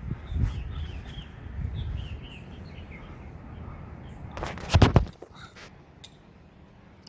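Small birds chirping, a quick run of short falling chirps, over a low uneven rumble. A little before five seconds in, a brief burst of loud sharp knocks.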